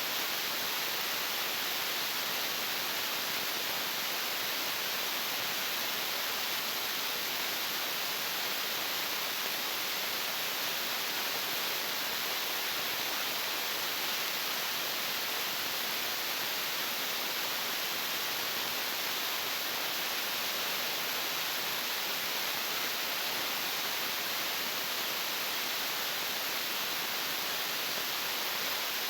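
Floodwater rushing in a swollen river: a steady, unchanging hiss-like noise with little bass.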